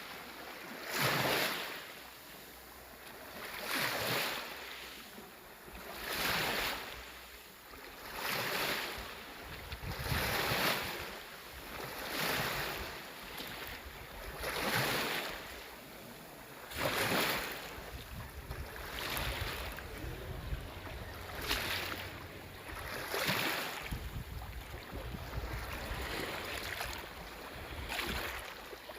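Small sea waves washing onto the shore one after another, each a hiss that swells and falls back about every two seconds, with a low wind rumble on the microphone at times.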